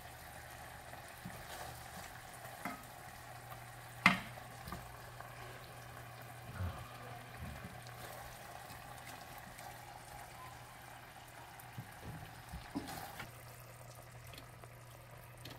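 Kitchen tongs clicking and tapping lightly against a platter while sauced chicken wings are turned, a few scattered taps with the sharpest about four seconds in, over a steady low hum.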